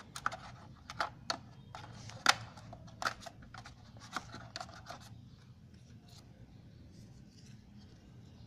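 Fingers scratching and tapping at a phone box's cardboard insert while working the paper SIM-ejector card out of it: a quick run of sharp clicks and scrapes, the loudest about two seconds in, dying down to faint handling after about five seconds.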